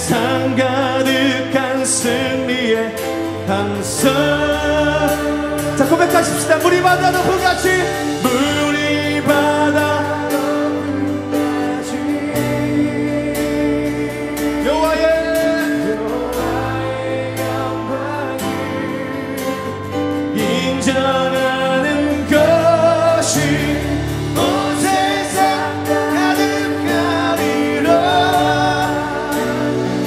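Live worship band playing a Korean praise song: a male lead singer with backing vocals over acoustic guitar, piano, keyboard, bass and drums.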